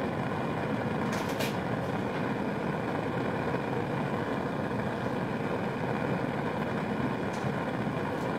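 Bunsen burner's gas flame running with a steady rushing noise as a wire inoculating loop is flamed in it to sterilise it; a few faint clicks about a second in.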